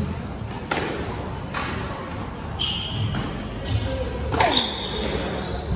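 Squash rally: the ball struck by racquets and hitting the walls, sharp knocks about a second apart, with brief squeaks of shoes on the wooden court floor.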